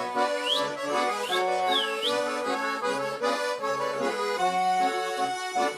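Garmon (Russian button accordion) playing an instrumental break in a folk song: a lively melody over changing held chords.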